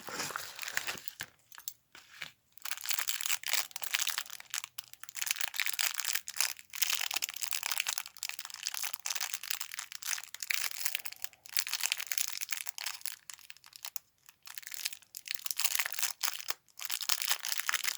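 A parcel's packaging being crinkled and unwrapped by hand: continuous crackly rustling with brief pauses.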